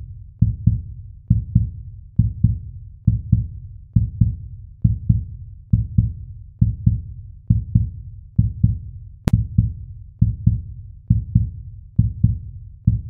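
Outro backing track of low, heartbeat-like double thumps, a pair about every second, steady and with no melody.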